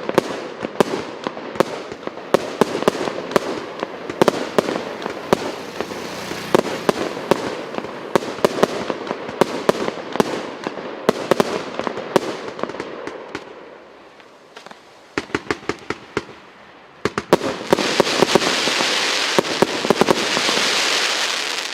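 A 99-shot, 1.25-inch firework cake firing: a rapid run of launches and aerial bangs that thins out about two-thirds of the way through, then a few single shots, then a final salvo with a loud continuous crackling hiss, the cake's crackling-comet finale.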